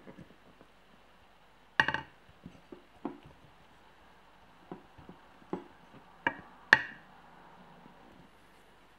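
Scattered sharp knocks and clinks of hard objects, about half a dozen spread over several seconds. The loudest come about two seconds in and near the end, and some ring briefly.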